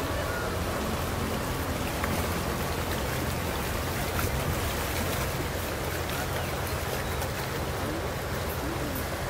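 Small outboard motorboat running past on the river: a steady low motor drone under a constant watery hiss.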